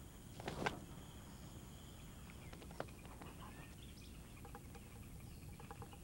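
Faint forest ambience: a steady high insect drone with scattered short bird chirps, and a brief rustle about half a second in.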